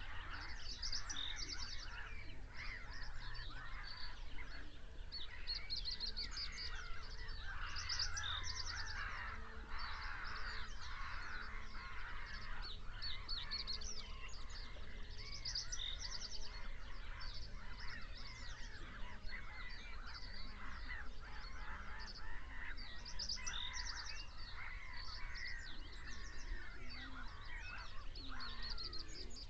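Dawn chorus of many wild birds calling and singing at once over a marsh, with repeated rapid trills high up and lower calls layered beneath, over a low steady rumble.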